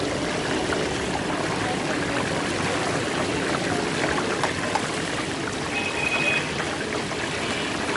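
Fish deep-frying in a large wok of hot oil, the oil sizzling and bubbling steadily.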